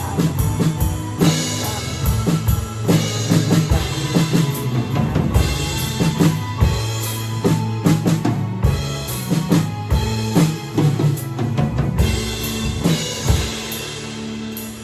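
Drum kit played along with a pop-rock backing track in an instrumental passage. Bass drum and snare hits drive a steady beat over bass and guitar, with cymbal crashes several times.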